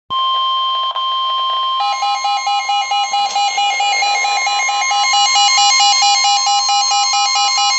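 Emergency Alert System attention signal: a steady single-pitched warning tone of the weather-radio kind sounds alone at first. After about two seconds a pulsing multi-tone electronic alarm joins it, beeping about three times a second over the steady tone.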